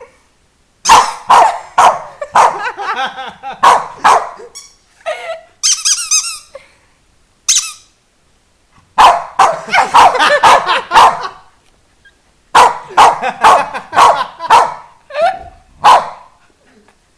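Pet dog barking in three bouts of rapid, sharp barks, with high squeaky whines between the first two bouts.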